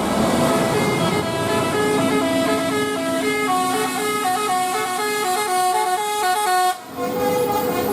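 Bus 'telolet' musical horn playing a quick tune of stepped notes over traffic noise. It breaks off briefly near the end, then starts again.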